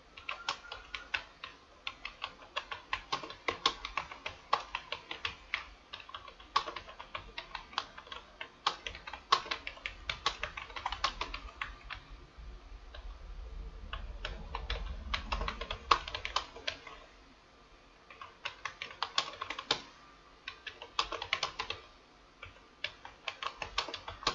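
Fast typing on a computer keyboard: rapid runs of key clicks with a few brief pauses, at about 59 words per minute during a one-minute typing test.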